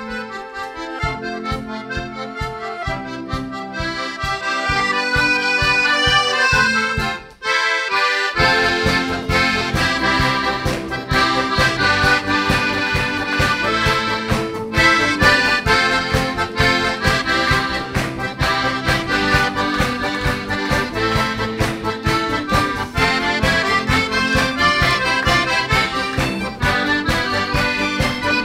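Accordion orchestra playing an upbeat instrumental passage over a steady beat. The music stops for a moment about seven seconds in, then comes back in fuller.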